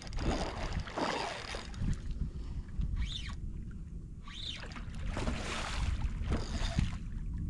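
A hooked fish thrashing and splashing at the water's surface in several separate bursts, each swelling and fading, over a steady low rumble of wind on the microphone.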